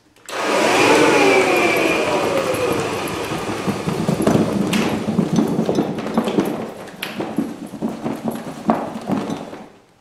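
A 1960s Kirby Dual Sanitronic 50 upright vacuum is switched on for a moment and then off, its motor winding down in a falling whine. As it coasts down, the cloth dust bag is shaken violently back and forth, rattling and flapping, to knock the dust out of the bag into the tray below.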